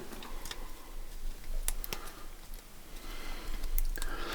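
A few faint, scattered clicks and light scraping over a low background hiss.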